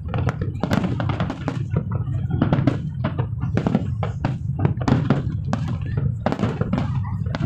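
Aerial fireworks shells bursting in rapid, irregular succession, many bangs and crackles a second over a continuous low rumble.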